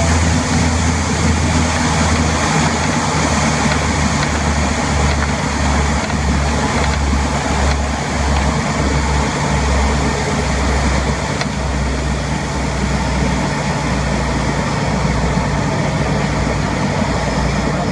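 De Havilland DHC-6 Twin Otter's twin Pratt & Whitney PT6A turboprops and propellers giving a steady low drone, mixed with the rumble of the main-gear tyre rolling along the runway after touchdown.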